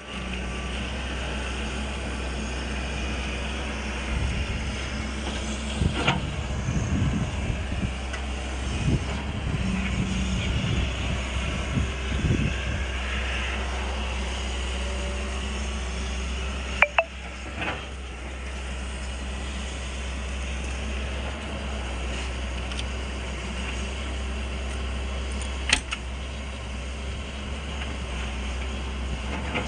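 Backhoe loader's diesel engine running steadily, with a stretch of irregular knocks and clanks from about four to thirteen seconds in and a few sharp clicks later.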